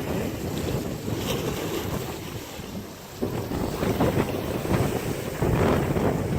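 Wind buffeting the microphone at sea, in uneven gusts with a brief lull midway, over the wash of sea waves.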